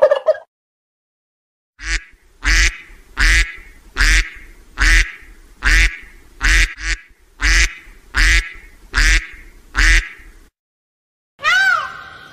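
Duck quacking about a dozen times in a steady series, a little under a second apart.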